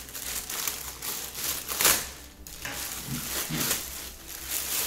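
Plastic courier mailer bag crinkling and rustling as it is cut and pulled open by hand, loudest about two seconds in.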